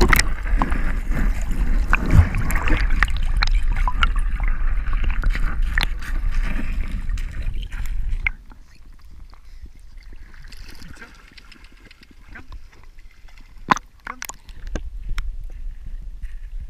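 Water splashing and sloshing against a GoPro's waterproof housing at the waterline, loud and full of small clicks, then dropping abruptly to a much quieter wash about eight seconds in, with a couple of sharp knocks later on.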